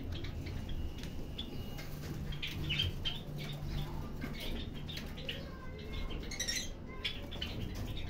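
Lovebirds chirping in short scattered calls, with a denser burst of higher chirps about six and a half seconds in.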